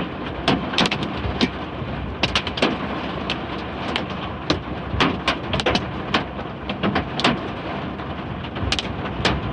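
Large hailstones striking a vehicle: irregular sharp knocks, about two a second, over a steady rain hiss.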